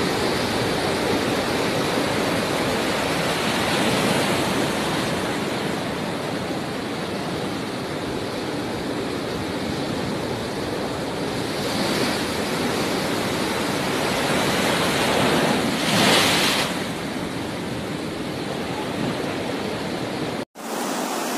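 Heavy storm surf: big waves breaking against a pier in a continuous rush of crashing water, with wind. It swells in surges, the loudest about three-quarters of the way through, and cuts out abruptly near the end.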